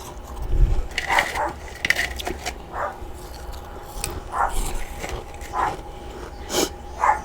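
Chunks of freezer frost and ice being bitten and crunched close to the mic, with a dog barking repeatedly about once a second.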